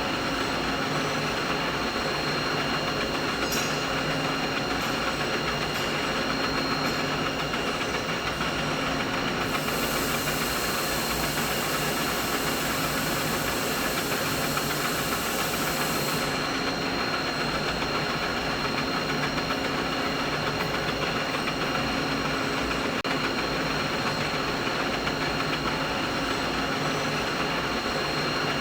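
Continuous mid-frequency machinery noise: an even hum and hiss with a few faint steady whining tones running through it. About ten seconds in, an extra high hiss joins and drops away again some six seconds later.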